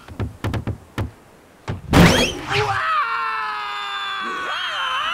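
A few short thumps, then about two seconds in a cartoon character lets out a loud, long, drawn-out scream.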